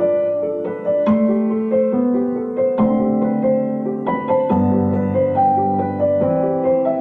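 Background piano music: a flowing line of single notes over low held chords that change every second or two.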